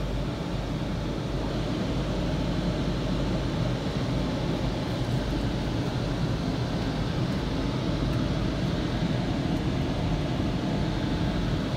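WashTec SoftCare 2 Pro car wash dryer blowers running, a steady rush of air heard from inside the car.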